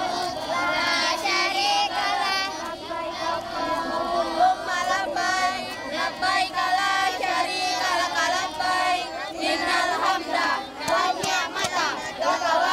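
Many children's voices chanting together in unison, a continuous sing-song group chant.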